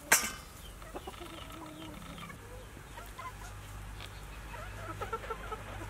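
A single sharp clink against a stainless steel bowl at the start. Then chickens cluck now and then in the background, more of them near the end.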